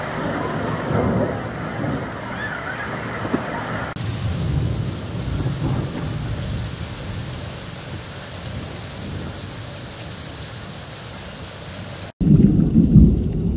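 Heavy rain pouring onto a flooded yard and standing water, with low thunder rumbling under it. After a sudden cut near the end, a louder, deeper rumble of thunder comes in.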